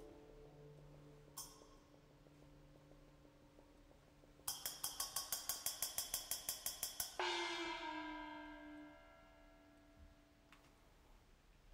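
Rapid metallic ringing, about six strikes a second, starts about four and a half seconds in. It stops abruptly after nearly three seconds, and its ring dies away over about two seconds. A faint click comes early on, with a low hum underneath.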